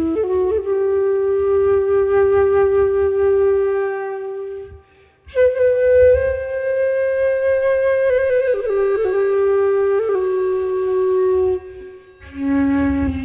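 A woodwind instrument playing long held notes in free improvisation, sliding and wavering between pitches, with a pause for breath about five seconds in and another near the end.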